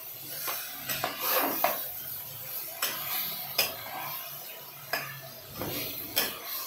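Long metal spatula scraping and knocking irregularly against the inside of an aluminium pressure cooker as chicken pieces are stirred and fried, with a light sizzle underneath.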